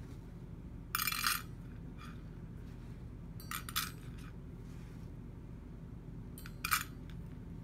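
Handfuls of dry rabbit pellets dropped into a small stainless steel bowl, rattling against the metal three times, about a second in, a little after three seconds, and near the end.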